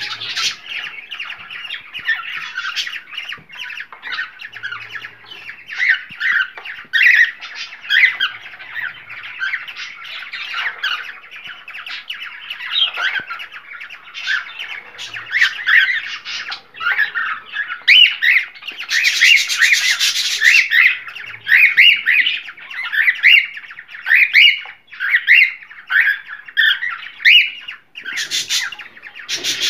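A flock of cockatiels chattering and calling, with many short chirps and whistles overlapping. About two-thirds of the way through, a harsh rasping noise lasts about two seconds.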